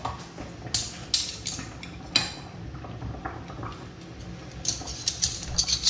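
Metal ladle clinking and knocking against stainless steel pots and bowls while a mackerel steak is lifted out: a few scattered clinks, then quicker ones near the end.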